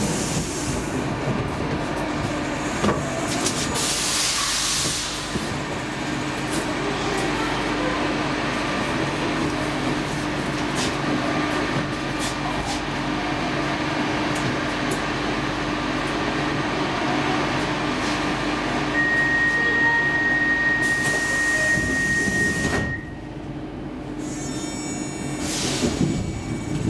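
Stockholm metro C14 train standing at a platform with its doors open: a steady low electrical hum under a general rush of noise, with a brief hiss about four seconds in. About nineteen seconds in, a steady high tone sounds for nearly four seconds, and then the sound drops off as the doors shut.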